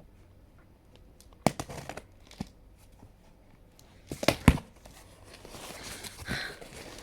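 Parcel packaging being torn and crumpled open by hand: a few sharp crinkles about a second and a half in, a loud burst of tearing and crinkling about four seconds in, then softer rustling.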